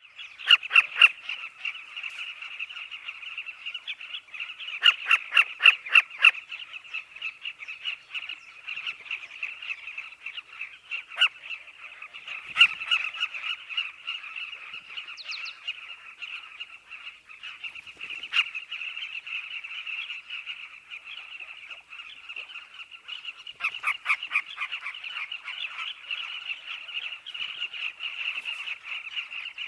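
Nesting colony of southern carmine bee-eaters, many birds calling at once in a dense, continuous chatter of chirps. Louder runs of close, rapid calls stand out at the start, around five to six seconds in, and again from about 24 seconds.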